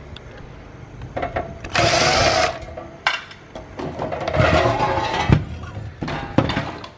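The sheet-metal case of a small inverter welder being taken apart. A brief power-tool whir comes about two seconds in, then metal rattling and scraping with a few sharp knocks as the cover comes off.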